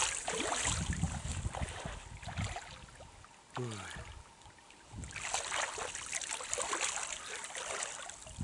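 Outdoor wind buffeting the microphone over flowing river water, easing in the middle and picking up again about five seconds in. There is a short falling tone about three and a half seconds in.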